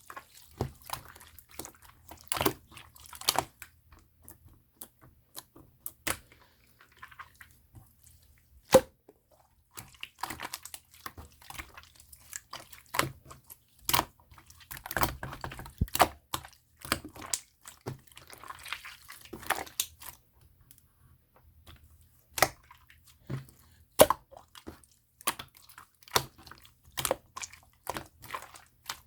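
Opaque slime being squished and worked by hand, giving irregular sticky clicks and small pops, one much louder pop about nine seconds in.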